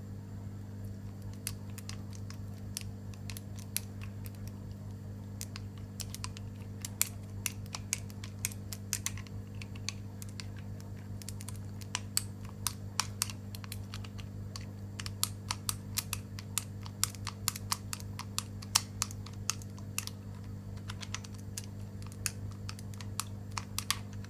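7-pin tubular lockpick being worked in a tubular-key disc lock: a long run of small irregular clicks as the pick is rocked and its feeler pins set, over a steady low hum.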